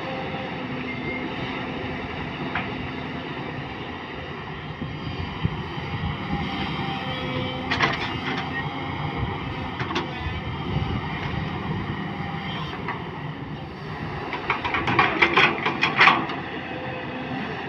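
Hydraulic excavator's diesel engine running steadily while it digs soil, with scattered clanks and clatter. A burst of rapid clanks near the end is the loudest part.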